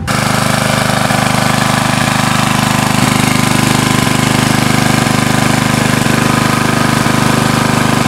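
Small portable generator's engine running loudly and steadily at constant speed, heard close up.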